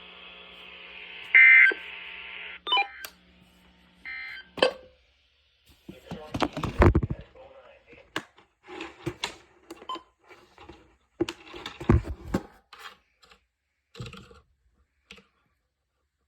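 Weather radio receiver playing a NOAA Weather Radio broadcast: a hiss of static, then three short warbling data bursts about a second and a half apart, the SAME end-of-message code that closes the weekly test. After them come irregular clicks and knocks from handling, loudest twice near the middle.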